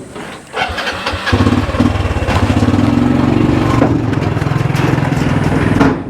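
An engine starts about a second in, then runs steadily with an even pulsing beat.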